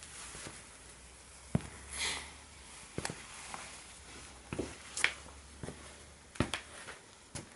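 Footsteps of well-worn Nike Air Max 90 sneakers on a stone tile floor: separate steps with a scuff, about six sharp knocks spread over several seconds.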